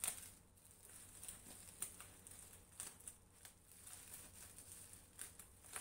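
Faint crinkling and rustling of bubble wrap being handled and pulled apart by hand, with scattered small, irregular crackles.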